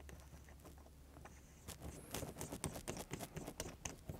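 Faint small clicks and light taps of fingers handling a brass-fitted pressure gauge and metal parts while threading the gauge into an airgun's action block, the clicks coming more often from about halfway through.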